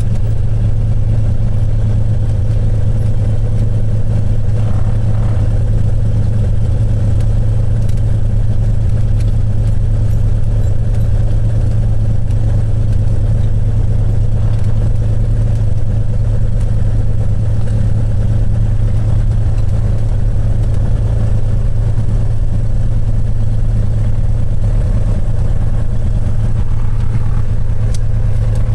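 Cessna 182's piston engine and propeller running at a steady speed, an even drone that holds constant throughout.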